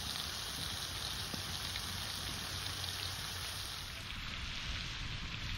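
Food sizzling steadily in a hot pan.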